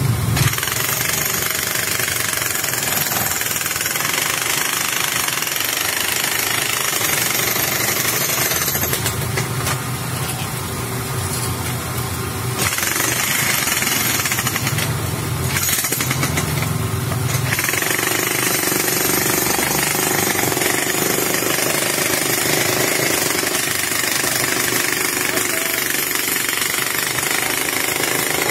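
Loud, continuous rapid rattling of heavy machinery, its tone shifting for several seconds midway.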